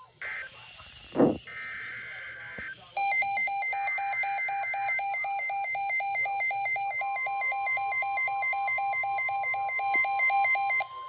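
Weather alert radio alarm: a loud electronic warble that switches rapidly and evenly between two pitches for about eight seconds and cuts off sharply. A steady single-pitch warning tone joins about halfway through. It is preceded by short electronic tones and a thump.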